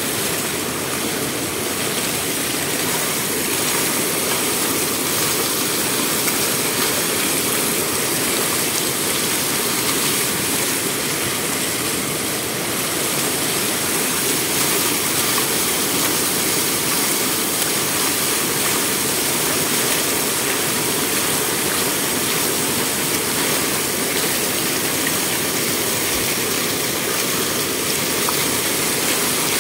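Steady rush of water pouring over the edge of a stone water gate in an unbroken flow.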